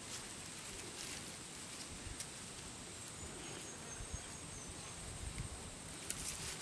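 Insects chirring in a steady, high, rapidly pulsing drone, with faint low thumps underneath.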